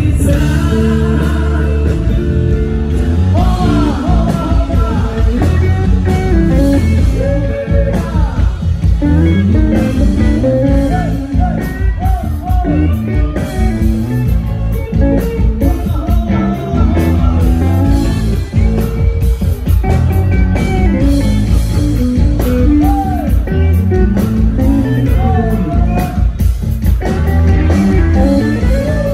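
Rock band playing live, heard from on stage: electric guitars, bass and drums with a singer's voice over them.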